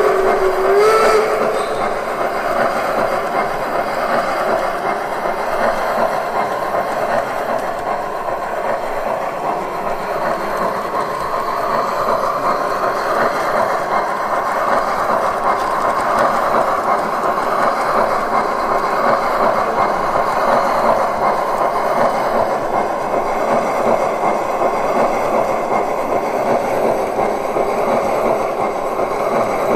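Gauge 1 brass model of the DR steam locomotive 18 201 running on its track, its onboard sound electronics playing steam-locomotive running sound over the wheels' rolling noise. A whistle from the sound module cuts off within the first second.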